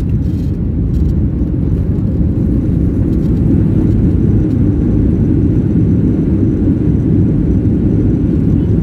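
Steady low roar inside the cabin of a Boeing 737-800 rolling out on the runway just after touchdown: engine noise and the rumble of the wheels as the jet slows. It builds up over the first second, then holds even.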